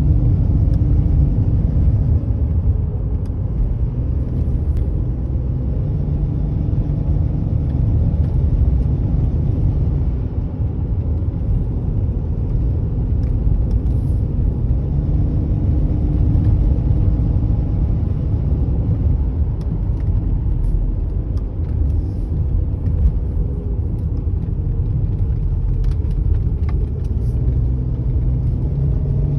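BMW X5 E53's M54B30 3.0-litre straight-six running under load, a steady low sound whose pitch drifts slowly, with the repeating 'chu-chu-chu' noise the owner hears once the engine is warm. The noise comes with a slight loss of power, and its cause is unknown.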